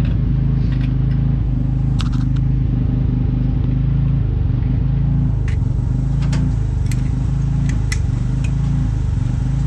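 A motor running steadily at constant speed, a low even drone, with a few scattered sharp clicks and ticks.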